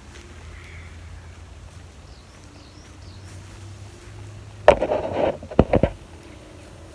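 Handling noise on the recording camera as it is grabbed and adjusted: a sudden loud rubbing rustle about two-thirds of the way in, then three or four quick knocks.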